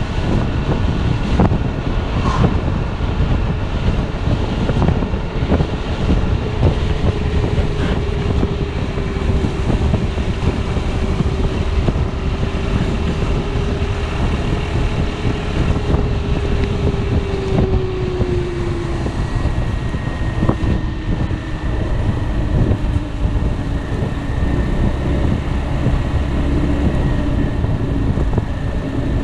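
Wind buffeting the microphone of a moving Piaggio Beverly 300 scooter, over the steady drone of its single-cylinder engine. The engine's pitch falls about two-thirds of the way through and holds lower as the scooter eases off.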